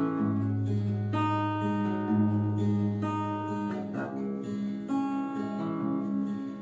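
Acoustic guitar playing the instrumental intro to a song: chords plucked about once a second and left to ring, with a quick strum about four seconds in.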